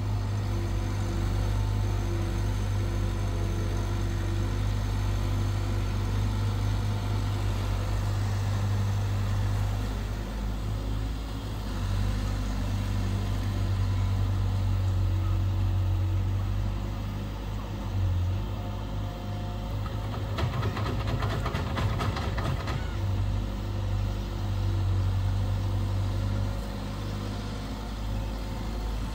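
Diesel engine of a long-reach Hitachi excavator running steadily as the boom raises and swings the bucket, with a few seconds of rapid rattling about three-quarters of the way through.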